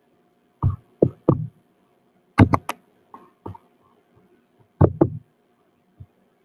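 Sharp clicks and knocks from operating a computer mouse and keyboard, in small clusters of two or three, as the slideshow is exited and the screen recording is stopped.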